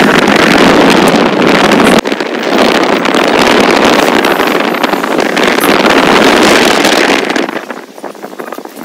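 Wind rushing and buffeting over the microphone from a moving vehicle, with road and engine noise underneath. It is loud and steady, with a sudden break about two seconds in, and eases off near the end.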